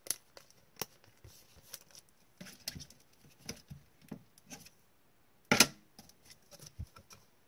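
Trading cards being handled with gloved hands: scattered small clicks and rustles, with one louder sharp rustle about five and a half seconds in.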